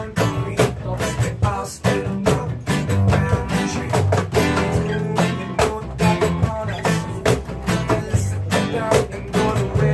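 Live acoustic music: a strummed acoustic guitar playing in a steady rhythm.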